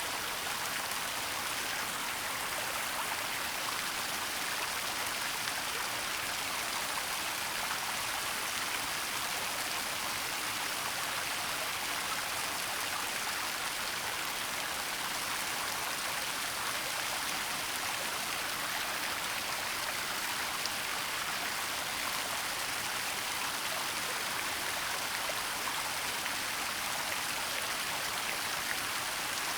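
Waterfall: a steady, even rush of falling water, mostly hiss with little low rumble.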